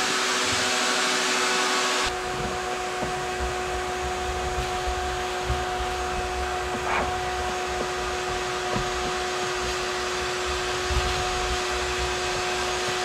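Shop vacuum running steadily with a motor whine while its hose sucks dry debris out of a car's glove-box opening. The sound turns duller about two seconds in, with low rumbling and small rattles of debris going up the hose.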